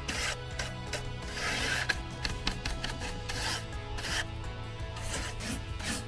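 Irregular rasping, scraping strokes on the wood of an old wooden beehive being cleaned before painting, with soft background music.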